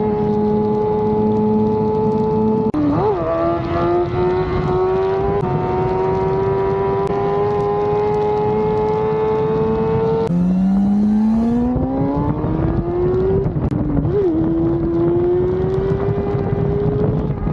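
Kawasaki ZX-6R inline-four engine running at high revs under way, its high-pitched note holding steady with slow rises in pitch. About three and fourteen seconds in there are quick dips and blips in pitch. About ten seconds in the note drops sharply, then climbs steadily as the bike accelerates hard.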